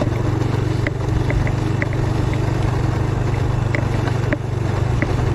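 Motorcycle engine running steadily at low revs, with a few short high ticks scattered over it and a brief dip about four seconds in.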